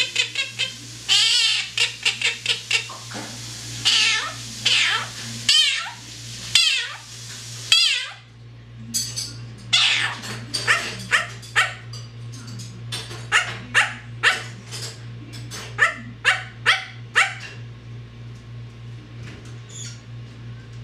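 A talking pet bird imitating a cat, giving a rapid string of high, pitch-bending meow-like calls, then a run of sharp repeated calls that thins out after about 17 seconds. A steady low hum runs underneath.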